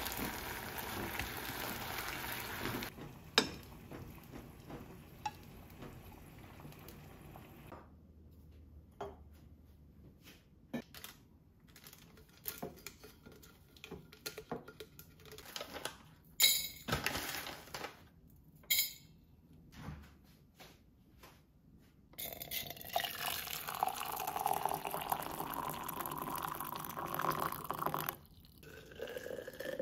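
Meat sizzling in a frying pan for the first few seconds. Then scattered clicks and knocks as thermos lids and a powder sachet are handled. From about 22 s, water is poured from a kettle into a stainless steel food jar for about six seconds, with the pitch of the filling shifting as it goes.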